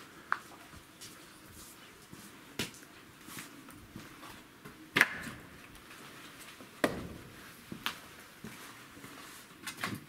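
Split firewood pieces being stacked onto a woodpile, knocking against each other: a handful of separate sharp wooden knocks a second or two apart, the loudest about halfway through.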